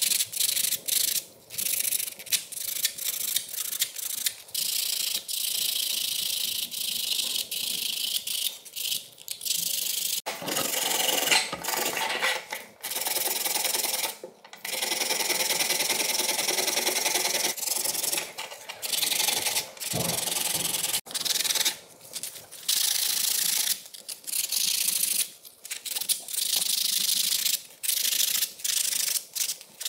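Small steel knife blade rubbed back and forth by hand on a flat abrasive surface to clean off rust: a run of scratchy rubbing strokes with short pauses between them.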